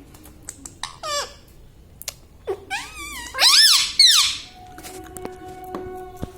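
Pet parrot giving squeaky calls: a short falling squeak about a second in, then a loud run of rising-and-falling squeaks partway through.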